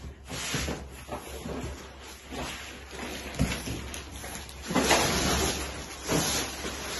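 Clear plastic packaging rustling and crinkling as it is pulled off a framed print, in a few bursts, the longest a little under five seconds in.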